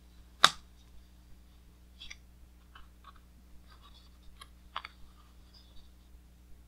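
Pages of a large hardcover art book being handled and turned: one sharp paper snap about half a second in, then light paper rustles and small clicks, and a second snap about two thirds of the way through as the next page is lifted.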